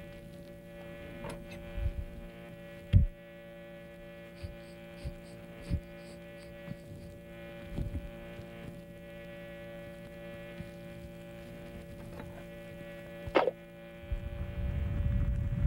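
Soundtrack of a computer-animated short: a steady electrical hum made of several held tones, with a few soft thuds and knocks, the loudest about three seconds in. About a second and a half before the end there is a quick rising swish, and then a low rumble swells up.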